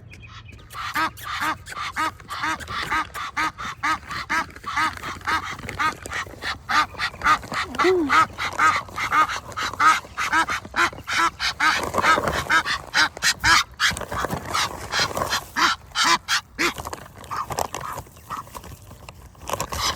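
Ducks calling in a rapid, continual series of short calls, several a second, with sharp clicks among them.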